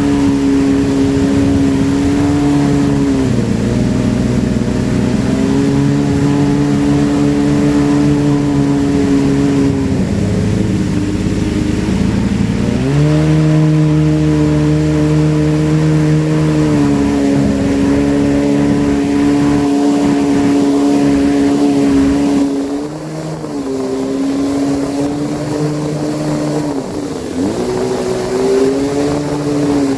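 2005 Yamaha jet ski engine running at speed. Its pitch dips several times as the revs fall and pick up again, and it settles to lower revs about 22 seconds in.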